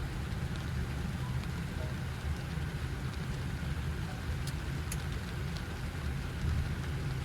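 Steady low rumble and hiss of a Boeing 737 MAX flight deck, with a few faint ticks.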